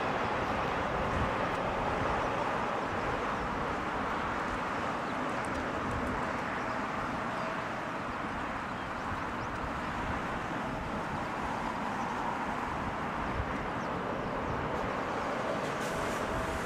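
Kawasaki P-1 patrol aircraft's four IHI F7 turbofan engines, a steady rushing jet noise as the aircraft lands and rolls along the runway, with a faint steady whine at times.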